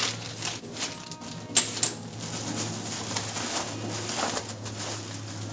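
Plastic packaging film rustling and crinkling as it is handled in a cardboard box, with a couple of sharper crackles about a second and a half in.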